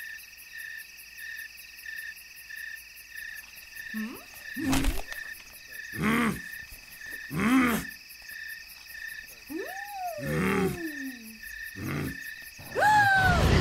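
Night ambience of crickets chirping in an even pulse, about three chirps a second. Over it the cartoon characters make several short wordless grunts and murmurs, some sliding down in pitch, with a louder vocal exclamation near the end.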